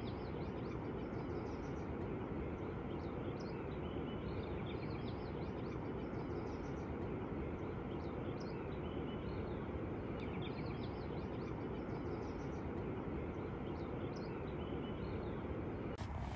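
Outdoor nature ambience: small birds chirping in short, frequent phrases over a steady background hiss.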